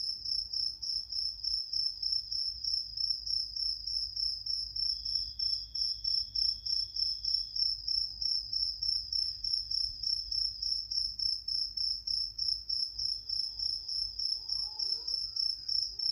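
A cricket chirping steadily: short, high-pitched pulses about three times a second, keeping an even rhythm.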